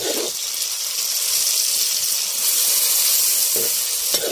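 Ginamos (salted anchovy paste) sautéing in hot oil in a wok with onion, tomato, ginger and garlic, giving a steady hissing sizzle. There is a soft knock near the start and another near the end.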